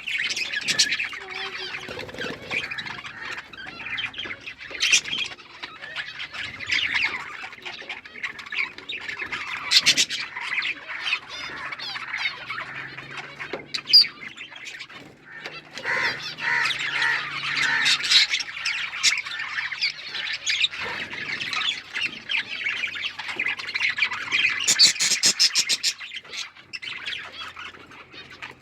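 A flock of budgerigars chattering and chirping continuously, many birds calling over one another, with sharper squawks and quick trilled notes standing out now and then.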